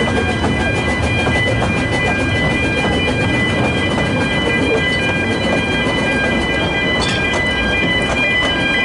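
Narrow-gauge steam train running, heard from an open carriage behind the locomotive: a steady rumble and clatter of wheels on the rails, with a steady high-pitched whine held throughout. A short sharp click about seven seconds in.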